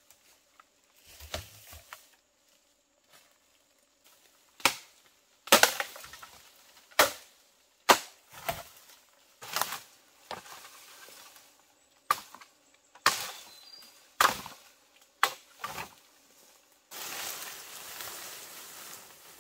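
Bamboo stems being chopped with a blade: about a dozen sharp chops, irregular and roughly a second apart. Near the end comes a long scraping rustle as cut bamboo poles are dragged over dry leaf litter.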